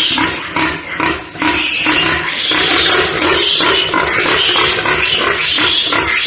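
A pig squealing loudly and harshly, one long scream after another with short breaks for breath.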